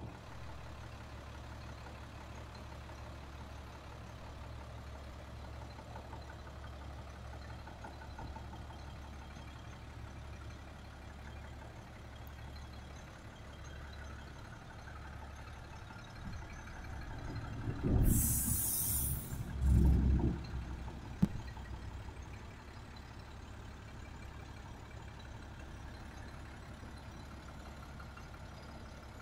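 International DT466 inline-six diesel in a medium-duty rollback truck idling with a steady low hum. About eighteen seconds in there is a short hiss of released air from the air-brake system, followed by a couple of dull thumps.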